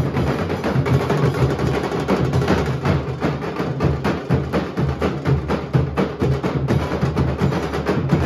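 Nashik dhol ensemble: many large barrel dhol drums beaten with sticks together in a fast, driving rhythm. The strikes come densely, with no let-up, over a strong deep bass.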